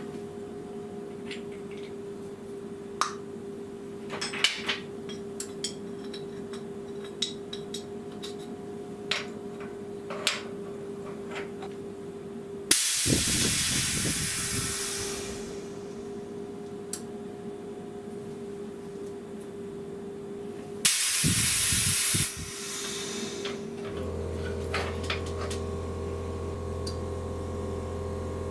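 Compressed air hissing through the pneumatic valve and cylinder of a desktop vertical injection molding machine. One hiss lasts about three seconds and fades. A shorter one comes about eight seconds later and cuts off sharply. Light metal clicks and knocks come before them, and a new steady low hum starts near the end.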